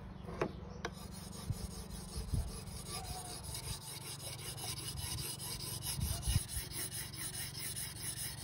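Niwaki 1000-grit water stone rubbed back and forth along the steel edge of a pair of Niwaki garden shears in quick, even strokes, honing the blade's bevel.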